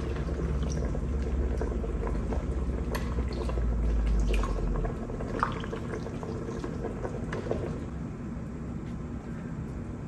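Soup broth being ladled from a stockpot and poured into a glass bowl of noodles: liquid pouring and splashing, with small clicks of the ladle against pot and glass.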